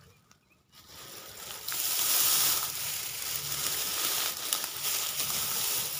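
Dry grass and brush rustling and crackling as hands push through and part it, rising about a second in and then running on steadily.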